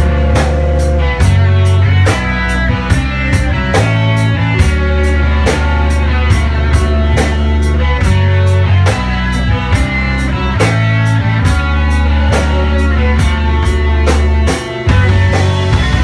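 Live rock band playing an instrumental passage: guitar and bass over a drum kit keeping a steady beat.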